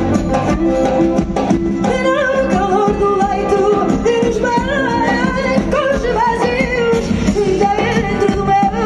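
Live fado band playing: a woman's voice sings a wavering, vibrato-rich melody over Portuguese guitars, a classical guitar and a drum kit. The voice enters about two seconds in, after a short instrumental passage.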